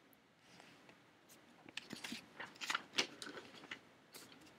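Faint, scattered clicks and taps, a dozen or so in a few seconds, mostly in the middle and latter part, over low room hiss.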